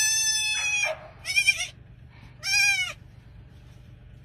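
Newborn goat kid bleating three times in a high, thin voice: one long call, then two shorter ones.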